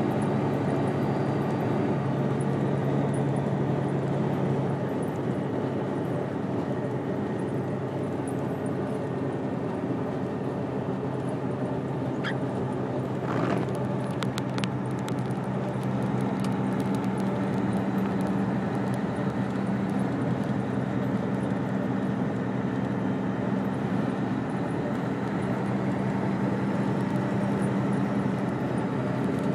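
Steady engine drone of a moving vehicle, a constant hum whose pitch shifts slightly a few times, with a few faint clicks about halfway through.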